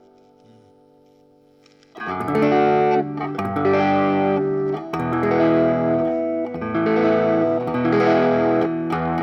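Electric guitar played through a Bugera V5 tube amp in its 1-watt mode. A chord rings out and fades low for the first two seconds, then the playing starts again with a series of held chords and notes.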